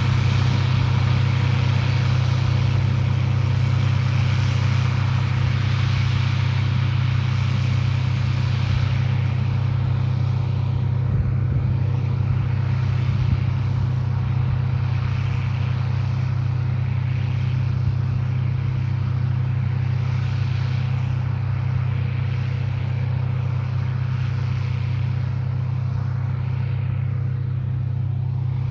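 Farm machine's engine running at a steady speed: a constant low drone with a haze of noise above it.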